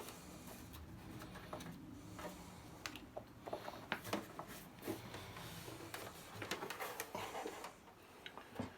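Faint scattered clicks, knocks and rustling of hands handling the unpacked equipment and its packaging, over a low steady hum.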